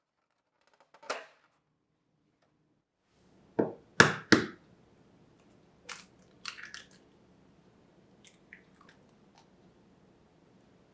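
Kitchen utensils and containers being handled: scattered sharp knocks and taps, the loudest a quick run of three knocks about three and a half to four and a half seconds in, then lighter clicks. A faint steady hum comes in a little after three seconds.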